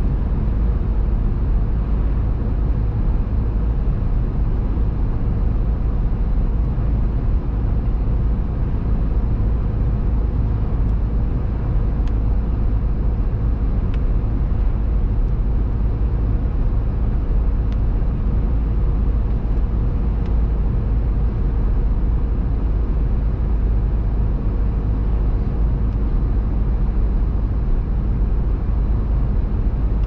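Steady driving noise of a car heard from inside the cabin: a low rumble of engine and tyres at road speed, with a faint steady drone from the drivetrain.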